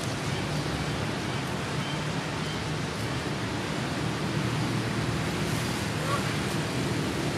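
Steady rushing background noise with a low hum, with a few faint, brief high chirps about two seconds in and again near six seconds.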